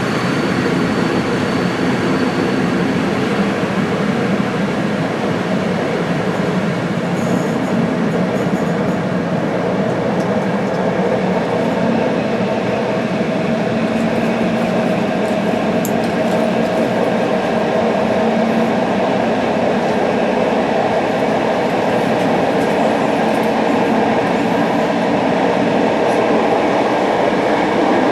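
Passenger train running along the line: a steady rumble of wheels on the rails with a low hum, growing slightly louder near the end.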